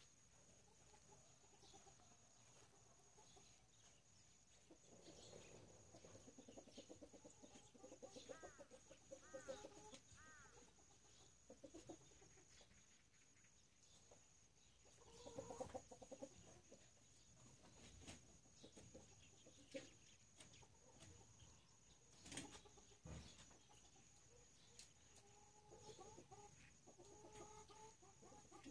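Hens clucking faintly in several separate bouts, with quiet stretches between them.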